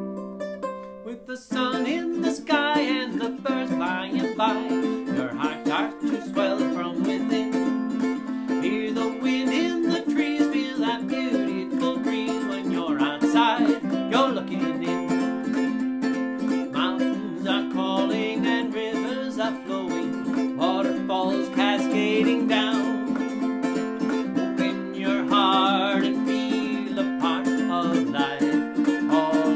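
Ukulele strumming chords through a wordless instrumental passage of a song, with a wavering melody line above the chords; the fuller playing comes in about a second and a half in.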